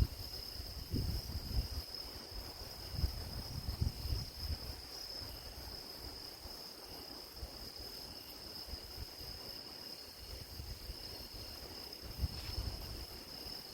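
Grass insects such as crickets chirring steadily at a high pitch, with irregular low rumbles of wind on the microphone now and then, mostly in the first few seconds and again near the end.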